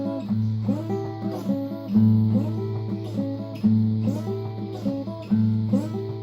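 A guitar playing a repeating blues riff with no singing. A low note is struck about every second and a half, with higher notes above it that slide up.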